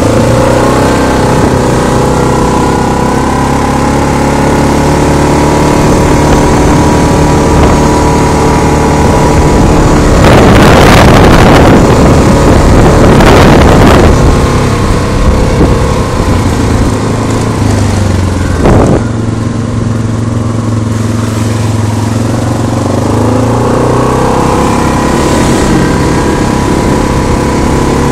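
ATV (quad) engine running steadily while riding a trail. About a third of the way in, a loud rushing noise covers it for a few seconds, and about two-thirds through there is a single sharp knock.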